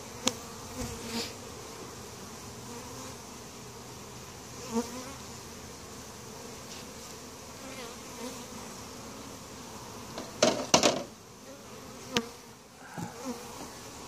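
Honey bees buzzing steadily around an open, crowded hive, with a few sharp knocks and scrapes of a metal hive tool on the wooden frames and box, the loudest cluster about ten seconds in.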